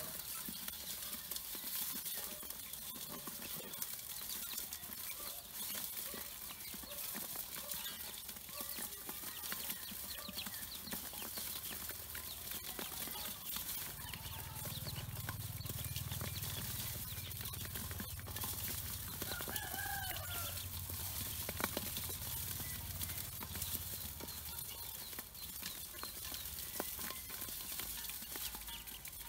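A brood of Pekin ducklings peeping continuously. A chicken gives a short call about twenty seconds in, and a low hum runs for several seconds in the middle.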